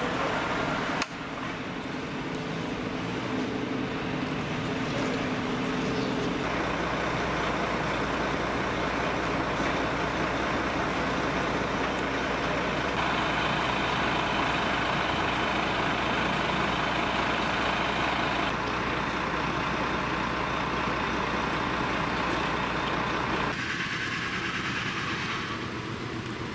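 Heavy tow truck's diesel engine running steadily at idle, with a sharp click about a second in and the noise shifting abruptly a couple of times.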